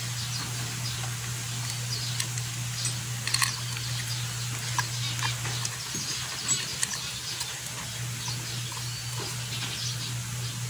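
Light, irregular metal clicks and taps of a socket wrench and fingers working loose the small 8 mm bolts of a Suzuki Raider J 110's oil filter cover, over a steady low hum.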